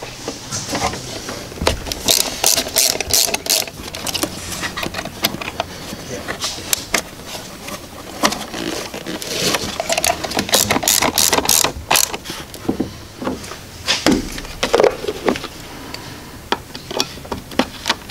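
Ratchet and extension turning the 10 mm nut on a fuse-box power terminal: runs of rapid clicking in two spells, with scattered clicks and rattles of tools and plastic parts.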